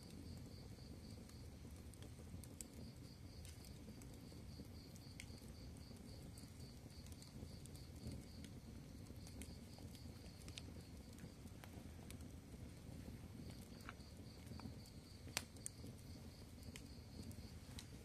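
Wood fire of split kindling sticks burning: a faint low rush of flames with scattered crackles and small pops, and one sharper pop about three-quarters of the way in. A high, even chirping pulse, about four a second, runs through most of it with a break in the middle.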